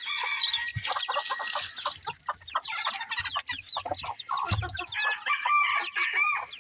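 Chickens clucking and calling, with many short, high peeps from chicks under a silkie hen, and a run of longer, pitched calls near the end.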